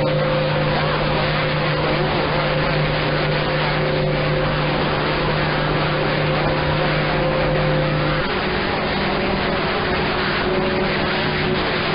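AM CB radio receiving channel 6 (27.025 MHz) while several powerful stations key up over each other: a loud wall of rushing noise with steady hum and whistle tones from the clashing carriers. About eight seconds in, the tones shift to a different pitch as the mix of keyed stations changes.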